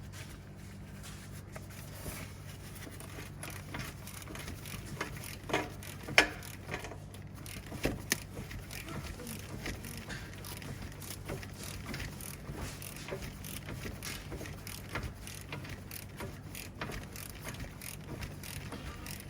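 Scattered clicks and metallic clinks of hand tools being handled, with a few louder knocks about six and eight seconds in, over a steady low hum.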